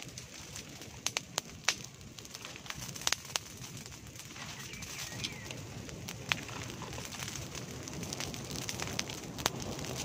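Open fire of dried leaves burning in brush: a steady rush of flame with scattered sharp crackles and pops, a cluster between one and two seconds in, more around three seconds, and single pops near six and nine and a half seconds.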